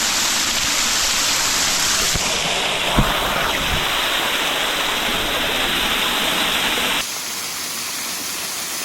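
Waterfall in heavy flow: a steady, loud rush of falling water. There is a short thump about three seconds in, and the rush turns suddenly quieter and duller about seven seconds in.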